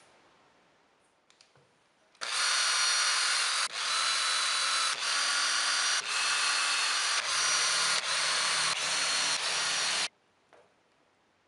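Cordless drill/driver running at speed as screws are driven through a thin plywood template into MDF: a steady motor whine in a string of runs that break off sharply about every second, the pitch shifting a little from run to run, stopping about ten seconds in.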